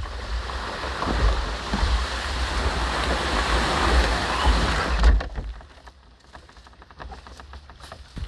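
A canoe hull being dragged over dead marsh grass, scraping and hissing steadily for about five seconds. It then stops, leaving only light rustles and clicks.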